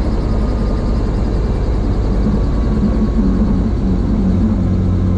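Helicopter running on the ground with its main rotor turning, heard from inside the cockpit: a steady engine and rotor drone.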